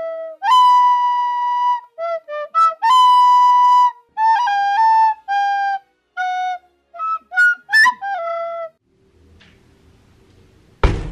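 A solo flute-like woodwind plays a slow melody of single held and short notes, stopping about two-thirds of the way through. After a short stretch of faint room noise, loud music with brass starts just before the end.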